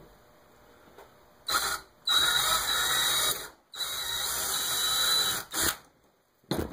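Small power drill boring out a hole in the retract's metal rotating arm, run in bursts: a short blip, then two runs of about a second and a half each with a steady high whine, then short blips near the end. The hole is being opened up step by step with number drill bits to fit a 4 mm strut.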